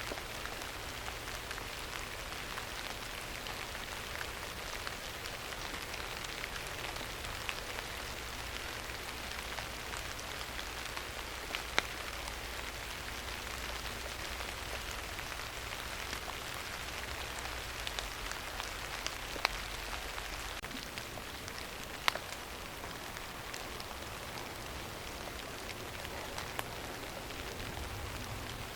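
Steady rain falling, an even hiss with a few sharp, louder ticks scattered through it, the strongest a little before the middle and about three-quarters of the way through.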